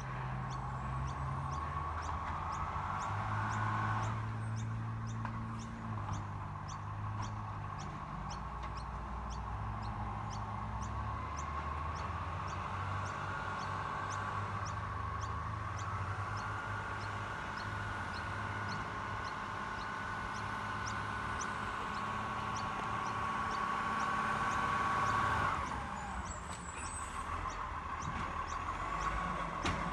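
Iveco garbage truck's diesel engine running as it works slowly along the street, its engine note shifting up and down. A steady high whine comes in over it twice, the second time cutting off suddenly near the end.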